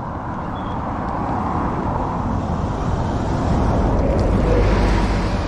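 A car passing by: a rush of tyre and engine noise that builds to a peak near the end and then starts to fade.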